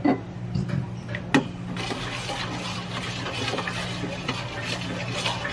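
A few light clicks of a utensil against the pot, then, from about two seconds in, a steady watery hiss of liquid in the soup pot.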